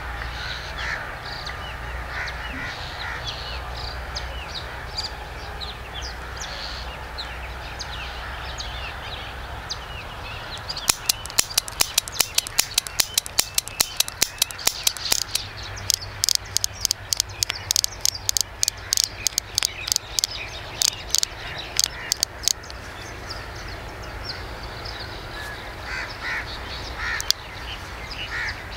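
Birds calling in the open over a steady low rumble. About a third of the way in, a long run of sharp clicks starts, several a second, and goes on for about ten seconds before stopping.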